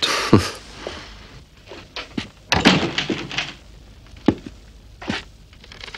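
A room door being shut, followed by a few separate thuds and knocks, the sharpest about four seconds in.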